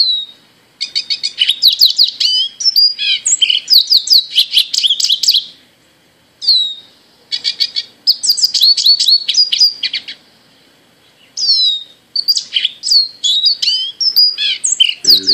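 Recorded lesser goldfinch song played through an iPad's speaker: three long runs of rapid, high twittering and sliding whistled notes, separated by short pauses.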